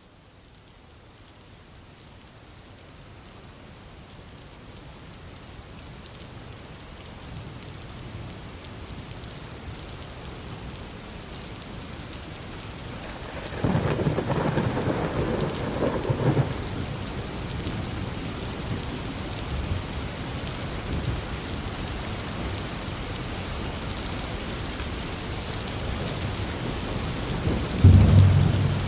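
Heavy rain falling steadily, fading in over the first several seconds. Thunder rumbles loudly for a few seconds about fourteen seconds in, and again near the end.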